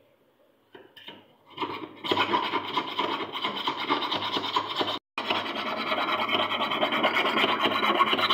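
Rapid, continuous scraping of a small file on a metal bead at a wooden jeweller's bench pin, starting about two seconds in after a few light taps, with a brief break about five seconds in.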